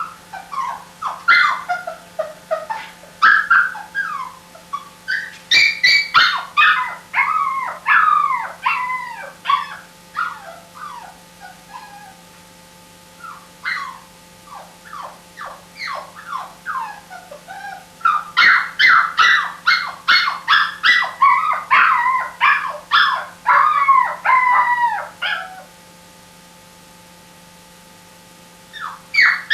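A puppy crying: rapid, high-pitched whines and yelps, many falling in pitch, in two long runs with a sparser stretch of cries between them and a short lull near the end.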